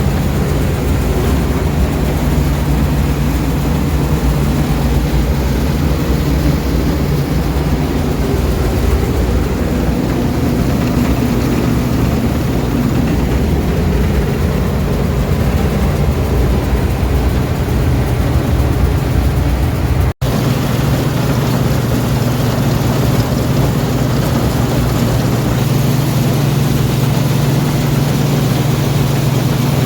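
International Harvester 403 combine running steadily while harvesting soybeans: a constant engine drone over a broad mechanical rush. It breaks off for an instant about twenty seconds in, then carries on unchanged.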